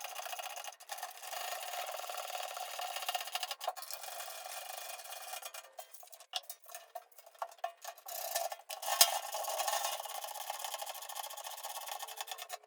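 Cloth rubbing walrus butter wood finish into a wooden surface, a steady rubbing, broken by a few short gaps and knocks about halfway through.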